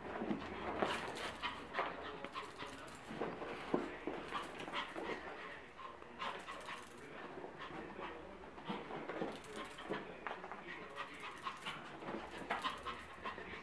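A small dog whimpering and yipping again and again while play-fighting with a cat.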